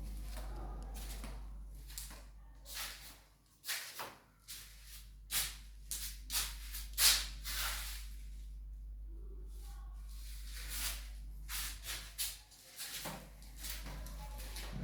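Irregular rustling and scraping handling noises in short strokes, the loudest about seven seconds in, over a steady low hum.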